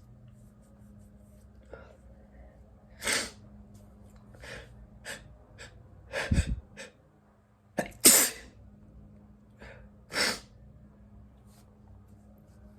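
A person sneezing in a fit: four loud, sharp sneezes about two to three seconds apart, the loudest about eight seconds in, with shorter catches of breath and smaller bursts between them.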